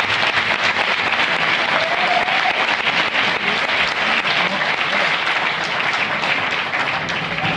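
Audience applauding steadily, dense clapping from many hands.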